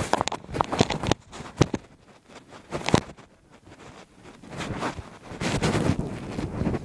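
Handling noise on a phone's microphone: irregular knocks, bumps and rubbing as the phone is swung about and carried, with a rustling stretch near the end.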